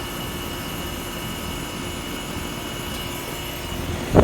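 Trane XE1000 outdoor condensing unit running steadily: its condenser fan and Climatuff reciprocating compressor give an even hum with a few steady whining tones.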